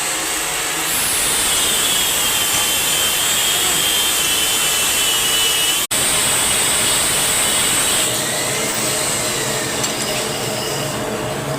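Metal lathe facing a workpiece: the cutting tool scraping across the turning end face with a steady hiss and a thin high whine, louder over the first eight seconds, with a brief break about six seconds in.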